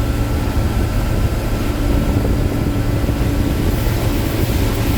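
Gleaner R7 combine running steadily while harvesting corn: a continuous low drone with a thin steady whine above it.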